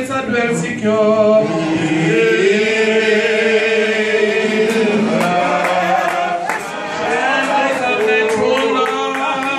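A man singing a slow worship song with long held notes into a microphone, heard through a sound system.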